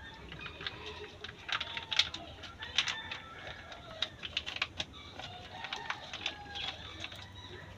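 Scattered sharp crackles and pops from a wood fire burning under a wok, with birds calling faintly in the background.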